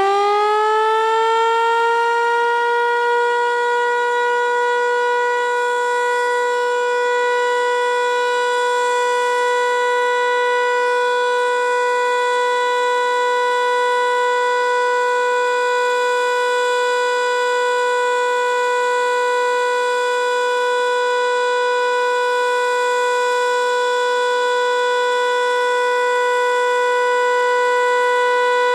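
ASC T-121 electromechanical outdoor warning siren sounding the Alert signal: one loud steady tone, still settling at the top of its wind-up in the first couple of seconds, then held without change.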